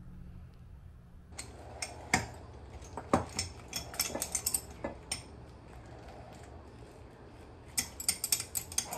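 Glass and ceramic kitchenware clinking and knocking as it is handled and set down on a counter. The clinks start about a second in, come scattered, and bunch into a quick flurry near the end.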